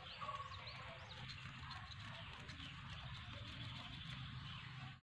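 Knife blade scraping the scales off a small whole fish: a run of faint, quick scraping clicks, over a background with a few short chirps. The sound cuts off abruptly near the end.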